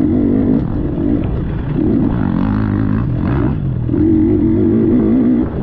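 Dirt bike engine running hard under the rider's throttle, its note surging for a second or so at a time and easing off in between, with the pitch wavering up and down.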